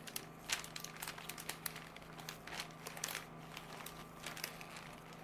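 Brown paper pattern being bunched and crumpled by hand, crinkling in quick irregular crackles.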